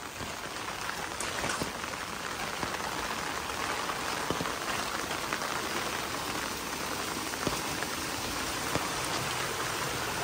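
Heavy rain falling steadily, with a few sharper drop hits standing out.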